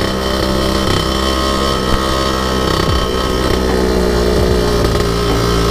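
A two-stroke scooter engine running steadily under way. The rider takes its lean ('kering') oil-pump setting for the cause of a seizure.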